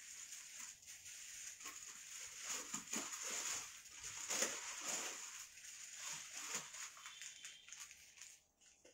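Plastic garment packets crinkling and rustling as they are handled: a stream of small crackles, louder through the middle and fading near the end.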